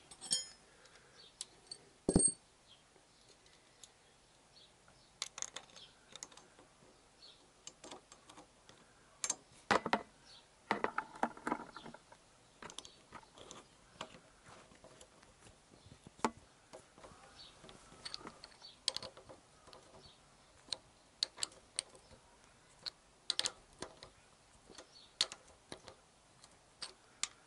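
Scattered small metallic clicks and clinks of a nut being threaded onto a crash-bar bracket bolt and turned with a socket tool, with one sharper knock about two seconds in.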